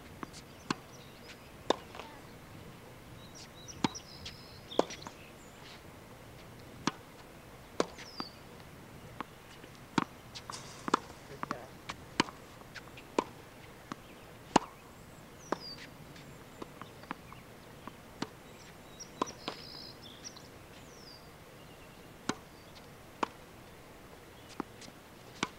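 Sharp, hollow knocks of tennis balls off a racket and bouncing on the hard court, coming irregularly about once a second, some in quick pairs. A few short high chirps, as of a bird, come through now and then.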